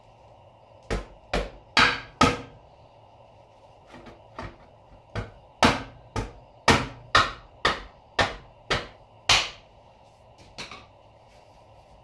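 Hammer taps driving the rear axle of a 2001 Aprilia Mille into the rear wheel and swingarm. Four quick taps about a second in, then after a pause about ten more at roughly two a second, the last one fainter.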